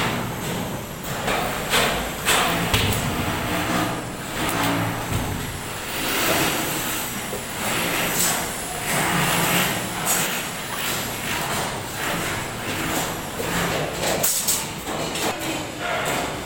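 Construction site din: a heavy vehicle engine running, with scattered knocks and clanks throughout.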